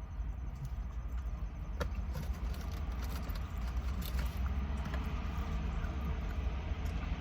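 A man eating fried chicken tenders, with a few faint crunches from bites about two and four seconds in, over a steady low engine-like rumble.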